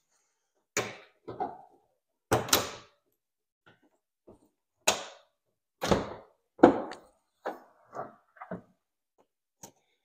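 A string of about ten separate clunks and knocks as the hood of a BMW E46 is unlatched and lifted open.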